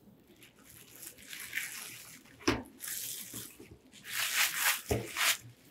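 Bubble wrap crinkling and rustling as it is pulled off a recurve bow riser, loudest near the end, with two dull knocks about two and a half and five seconds in.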